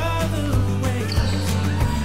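Background pop song with a steady beat, in a stretch without sung words.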